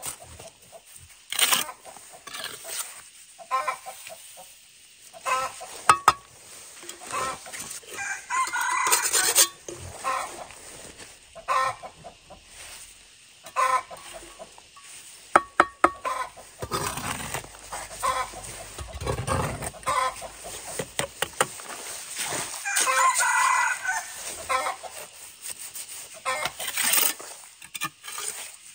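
A steel trowel scraping and knocking as mortar is spread and pointed on concrete blocks, giving short sharp clicks and scrapes throughout. A rooster crows twice, once about eight seconds in and again about two-thirds of the way through.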